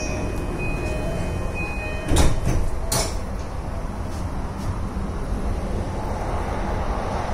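Yamanote Line train doors closing: a high warning beep sounds about once a second, then the sliding doors shut with a loud knock a little over two seconds in. The train's steady running rumble follows.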